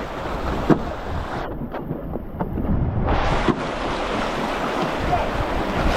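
Running river water and wind buffeting the microphone, with a few brief knocks.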